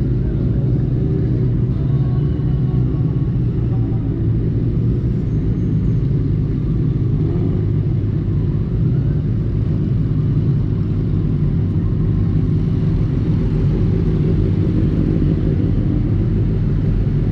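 Benelli TNT600i's inline-four engine running steadily while riding, with a steady low rumble and no changes in revs.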